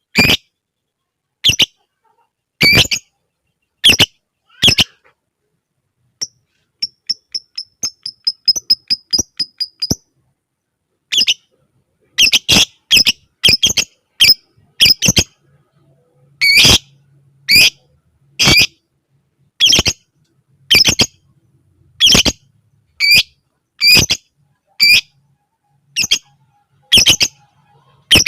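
Lovebird giving loud, shrill, separate squawking calls, one every half second to a second. About six seconds in they give way to a run of quick, fainter ticking chirps that speed up for a few seconds, and then the shrill calls resume.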